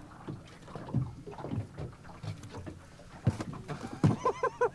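Dull knocks and thumps on an aluminium boat's deck as the crew move around during the fight with the fish. Near the end comes a quick run of four short pitched calls.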